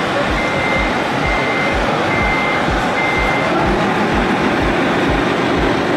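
Reversing beeper sounding a steady high beep about once a second, four times, and stopping about three and a half seconds in, over steady truck running noise and a regular low thud about twice a second.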